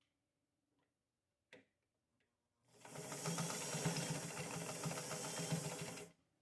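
Sewing machine stitching in one run of about three and a half seconds, starting a little before the middle and cutting off near the end. A single click comes shortly before it starts.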